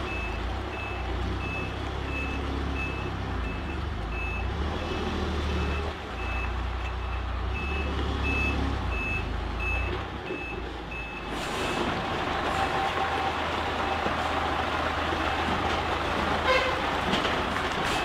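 Reversing beeper of an Isuzu Giga FVZ self-loader truck sounding about twice a second over the truck's diesel engine as the loaded truck backs up. The beeping stops about eleven seconds in and the engine runs on, with a brief sharp sound near the end.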